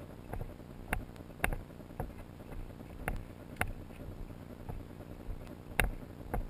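A hiker's footsteps crunching on a dirt and gravel trail at walking pace: sharp, uneven crunches often about half a second apart, over a steady low rumble.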